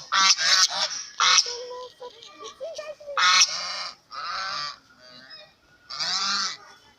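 Geese honking: a quick run of loud honks in the first second and a half, then three more single honks a second or two apart.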